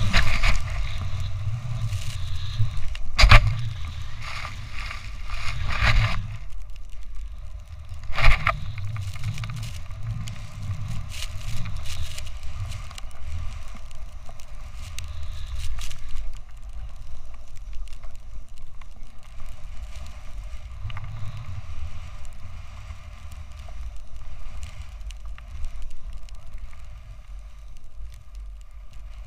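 Snowboard riding through deep powder snow, a rough hissing slide under a steady rumble of wind on the action camera's microphone. A few sharp knocks come in the first eight or so seconds.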